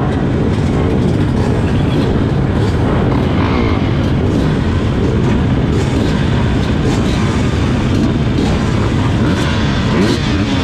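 A row of motocross dirt bikes running together at the starting gate, the nearest one a Kawasaki, engines idling with throttles blipped up and down in a steady loud din while the riders wait for the gate to drop.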